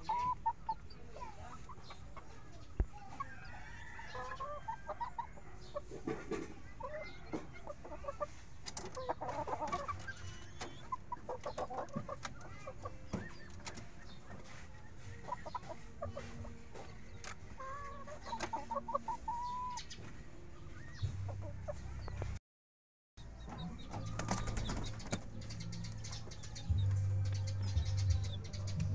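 Chickens clucking in short, repeated calls. About two-thirds of the way through, the sound cuts out for under a second, and a low steady hum follows.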